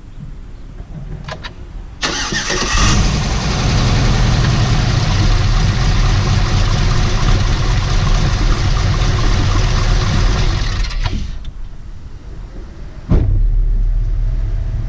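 Cammed 6.0 L LS2 V8 in a Trailblazer SS cranking and starting about two seconds in, then running with its serpentine belt off, easing down a little around eleven seconds and rising again in a sudden louder low rumble near the end. With the belt removed the grinding is gone, which shows the noise is not internal to the engine but comes from one of the belt-driven accessory pulleys.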